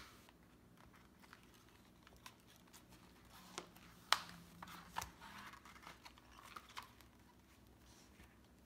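Paper insert pages and plastic acetate sheets rustling and crinkling as a traveler's notebook insert is handled and flipped through. A few sharp clicks come in the middle.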